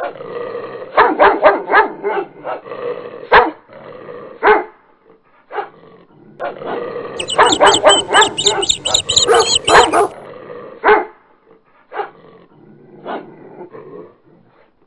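A dog barking repeatedly in short, sharp barks, scattered at first, then a fast, loud run of barks for about three seconds from around halfway through, then a few single barks.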